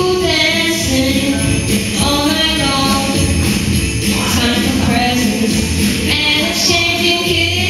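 Christmas pop backing track with jingle bells shaking throughout, and a boy singing a melody over it into a microphone.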